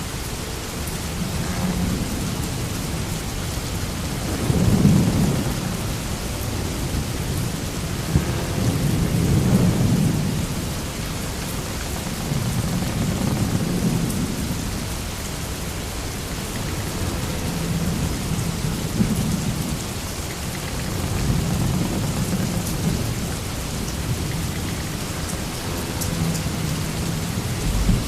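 Sailing-ship sound effect in stormy weather: a steady rain-like hiss with deep rumbling swells that rise and fade every four or five seconds.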